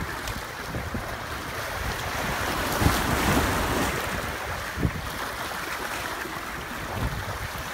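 Sea surf washing steadily with wind buffeting the microphone; the wash swells about three seconds in.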